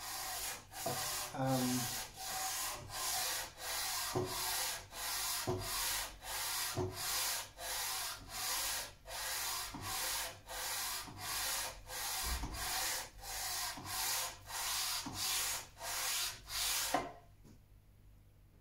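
The cast-iron side of a Record T5 hand plane being rubbed back and forth on 240-grit sandpaper, in steady scraping strokes about one and a half a second that stop near the end. The paper is grinding down one high edge of the side, about 4 thou out, to bring the side square to the sole.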